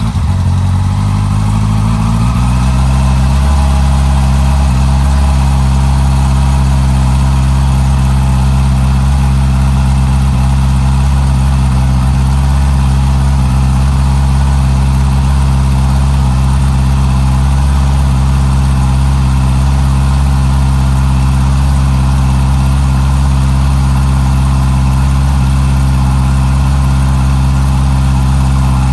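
Honda CB650R inline-four engine idling through its stock exhaust, just after starting. The idle settles over the first few seconds, then runs steady and even.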